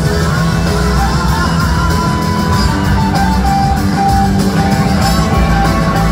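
Live blues-rock band playing, with an electric guitar lead of held, sustained notes over a heavy bass and drum backing.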